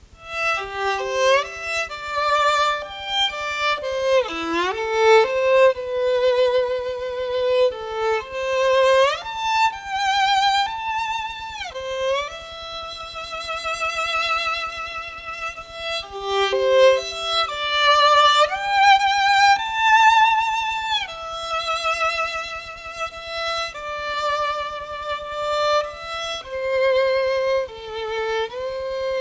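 Sony WM-D6C cassette player playing back the instrumental intro of a Chinese pop ballad: a solo bowed string melody, slow, with vibrato and sliding notes.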